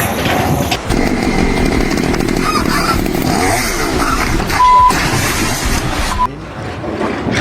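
A small engine running noisily, its pitch rising and falling around the middle, with a short steady beep a little past halfway.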